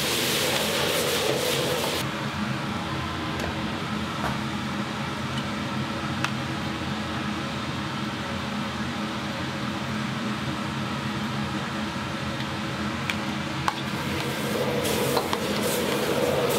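Steady hum of a kitchen exhaust fan, with a loud hiss during the first two seconds and again near the end, and a few light clicks of kitchen utensils.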